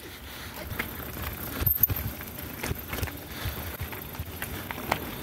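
Mountain bike rolling fast over a dirt singletrack: tyres on dirt and leaves with irregular knocks and rattles from the bike over bumps and roots, loudest in a clatter about two seconds in.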